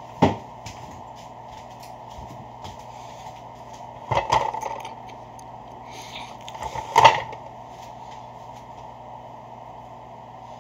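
A few sharp knocks and rustles close to the microphone: one about a quarter second in, a short cluster around four seconds in and another around seven seconds in, over a steady low hum.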